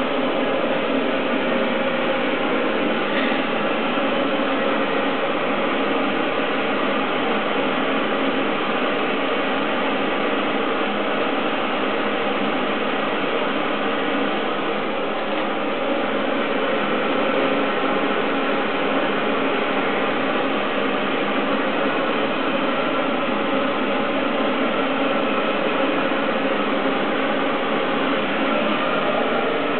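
A machine running steadily: a constant mechanical whir with several steady tones in it, unchanging throughout.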